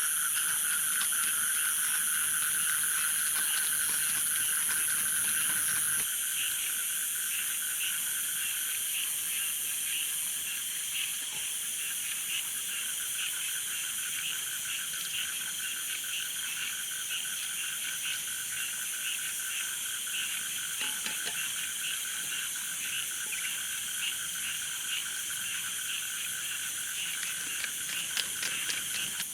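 A dense chorus of frogs calling together, a steady layered din of rapid pulsing calls with a high steady trill above it. It drops slightly in level about six seconds in.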